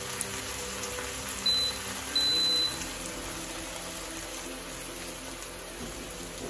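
Glass-ceramic hob's touch controls beeping twice, a short beep and then a longer one, as the hob is switched off. Under them the pan of pork ribs and vegetables hisses steadily.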